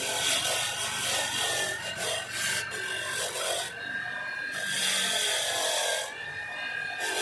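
Slow back-and-forth rasping strokes, about one every second and a half, as of a part being rubbed or filed by hand, with a faint steady whine underneath.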